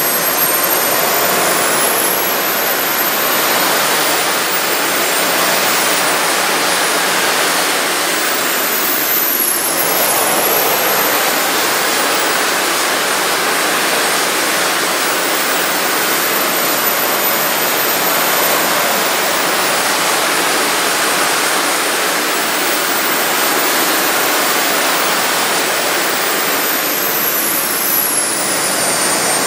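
Three small jet turbines and three electric ducted fans running together at lifting power, a loud steady roar with a high turbine whine that rises and falls several times as the throttle is worked.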